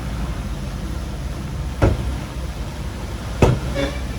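Heavy diesel earthmoving machinery running steadily with a low rumble. Two sharp knocks stand out, one a little before halfway and one near the end.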